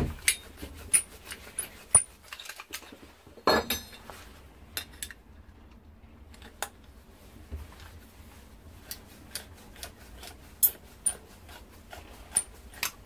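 Mini pipe slice being turned round a copper pipe to cut it: a run of small irregular metallic clicks and clinks from the cutter and pipe, with a louder clatter about three and a half seconds in.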